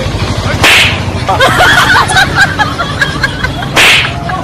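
Two sharp whip-crack sounds, about three seconds apart.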